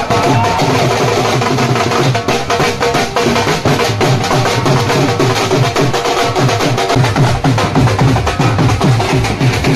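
A baraat band's dhol drums playing a fast, driving beat of quick, dense strokes with heavy low hits, loud and unbroken.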